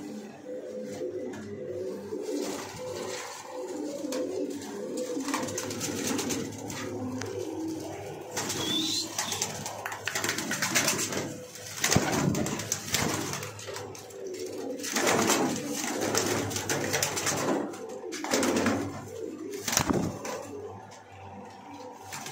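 Several domestic pigeons cooing in a small loft, with a few loud bursts of wing flapping in the second half.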